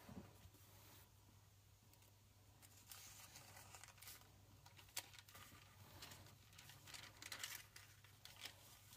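Faint rustling and crinkling of thin Bible-paper pages being turned by hand, starting about three seconds in and coming in several short rustles.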